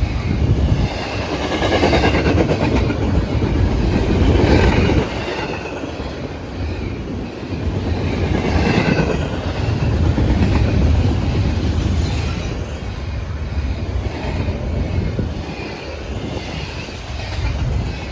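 Stacked intermodal freight cars of a long train rolling past at speed: a steady heavy rumble with rapid clickety-clack of the wheels, swelling and easing as the cars go by.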